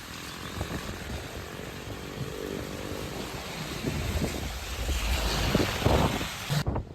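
Typhoon wind and rain gusting and buffeting the microphone, with a motor vehicle's engine humming through the middle. The sound cuts off abruptly near the end.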